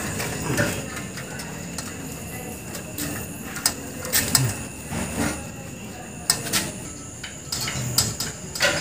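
Scattered light clicks and knocks of hands working on an air-conditioner outdoor unit, handling its sheet-metal casing and connecting the compressor wiring.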